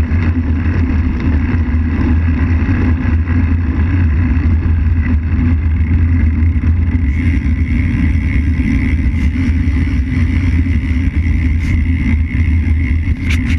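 Wind buffeting a bike-mounted camera's microphone, with road-bike tyres rolling on asphalt, giving a steady loud rumble. A few sharp clicks come near the end.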